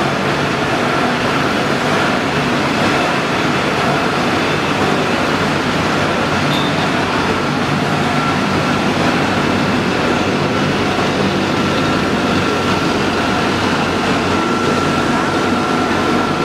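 Steady machinery noise from a running waste-to-oil plant, with a thin high whine that grows clearer in the second half.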